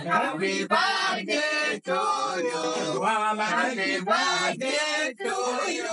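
A man singing, in phrases broken by short pauses.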